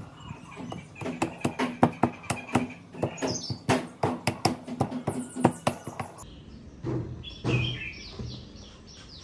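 A quick run of taps and pats as hands press a fabric panel down onto a speaker cabinet, with a couple of brief bird chirps.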